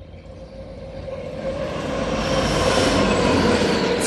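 G gauge model passenger train running on the track, its rumble, wheel noise and a steady hum growing louder as it comes onto the trestle bridge. A brief hiss sounds right at the end.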